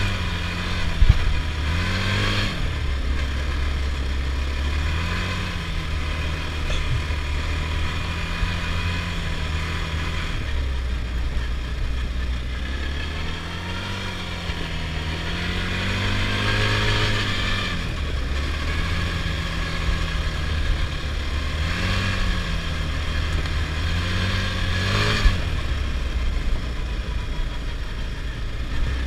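Adly Hurricane 320 quad's engine under way, its pitch rising and falling repeatedly as the throttle is opened and closed. A few sharp knocks break through, about a second in and again near the end.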